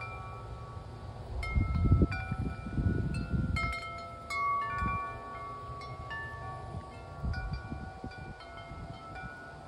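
Wind chimes ringing in gusty wind: many clear, overlapping tones struck at irregular moments and left to ring. Bursts of low rumble come about one and a half to four seconds in and again around seven to eight seconds, and are the loudest part.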